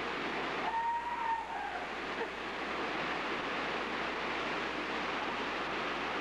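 Steady rush of flowing river water, with a short whistle-like note that rises and falls about a second in.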